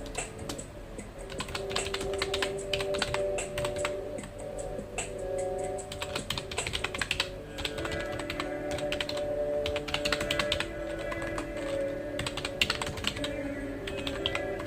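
Computer keyboard typing: fast, irregular keystroke clicks in bursts with short pauses between them, over soft background music with held notes.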